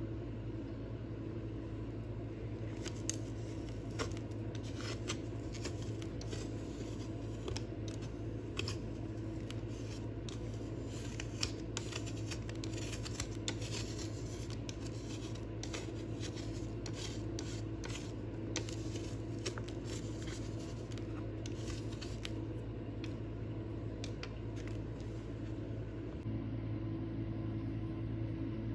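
A palette knife scraping and tapping against a plastic palette tray while mixing paint, in scattered short clicks and scrapes that stop near the end, over a steady low hum.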